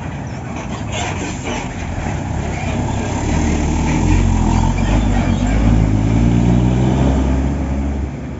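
Diesel engine of a large intercity coach running close by, growing much louder about three seconds in as the coach pulls away, then fading near the end.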